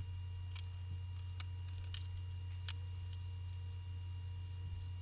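Steady low hum with faint steady tones above it, broken by a few faint, sharp clicks at irregular moments.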